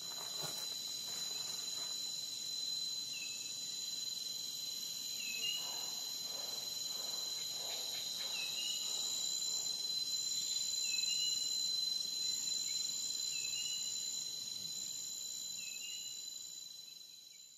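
Steady, high-pitched insect chorus, with a short chirp recurring about every two to three seconds; fades out near the end.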